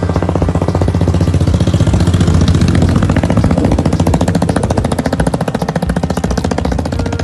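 Two-wheeler engine running while climbing a hill, a fast, even pulsing that grows louder in the middle.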